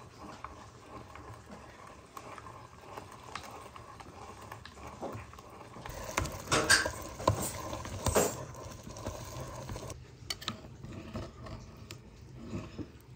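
Clinks and knocks of dishes and utensils being handled, with a cluster of sharper knocks about six to eight seconds in.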